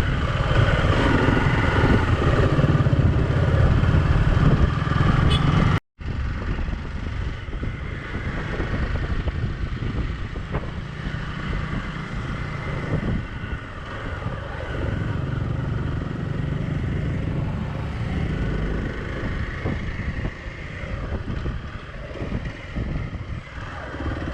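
Hero XPulse 200 motorcycle's single-cylinder engine running on the move. It is louder for the first six seconds, drops out for an instant, then carries on more quietly.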